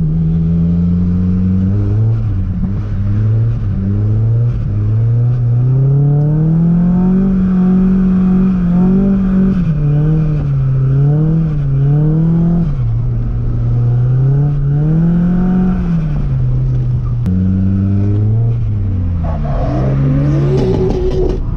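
Car engine revving up and down again and again under throttle, as when a car is being drifted, with its pitch climbing and falling in repeated swings. About twenty seconds in there is a rougher, noisier stretch.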